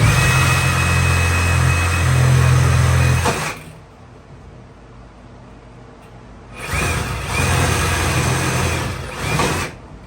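Reciprocating saw (Sawzall) cutting through a drain hose, run in three bursts: about three and a half seconds, a pause, about three seconds more, then a short burst at the very end, the motor's whine rising as each one starts.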